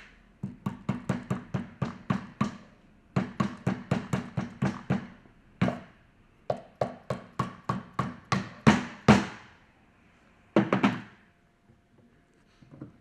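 Quick hammer taps on the metal parts of a centrifugal pump's bearing assembly, about four or five a second, in several runs with short pauses, while the shaft and bearing cover are knocked into place. The heaviest blows come at the end of the third run, and a short final burst follows.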